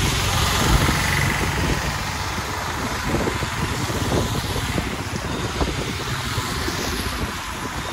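A heavy vehicle running on a wet road in rain: a low engine rumble under a steady hiss of rain and tyre spray.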